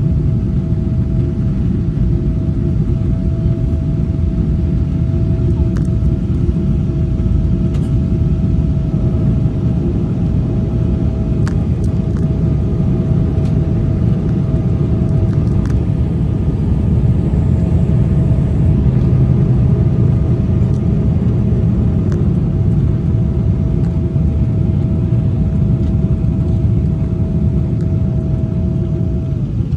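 Jet airliner cabin noise during descent: a steady low rumble of engines and airflow, with a steady whine that slides down in pitch near the end.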